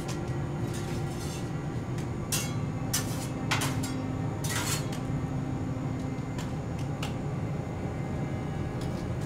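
Diner kitchen ambience: a steady low hum with a few short clinks and clatters of dishes and utensils, the loudest between about two and five seconds in.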